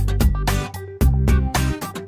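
Background funk music with a steady beat, bass and guitar.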